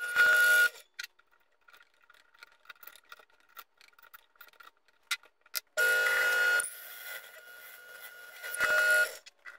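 Delta DP220 drill press driving a 2 5/8-inch hole saw through plywood in short bursts: a steady whine with cutting noise, briefly at the start and again from about six seconds in. In between, light clicks and taps as the cut wooden disc is pried out of the hole saw.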